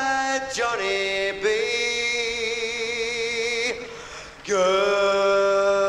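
Rock and roll band recording in a stop-time break: long held sung notes with vibrato over sustained chords, with the drums and bass dropped out. The sound dips briefly about four seconds in before another long held note.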